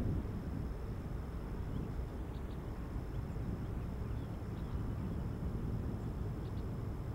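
Outdoor ambience: a steady low rumble, with a thin high whine that breaks off a few times and scattered faint short chirps.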